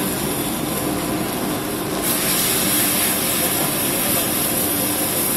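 Steady roar of a high-flame commercial gas wok burner with the Manchurian gravy in the flaming wok sizzling and steaming; the high hiss grows stronger about two seconds in.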